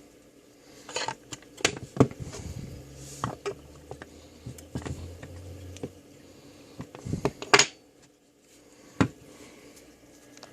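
Handling noise from a handheld digital multimeter and its parts being worked on a desk: a string of irregular clicks, taps and plastic knocks, the loudest a little past halfway and another near the end.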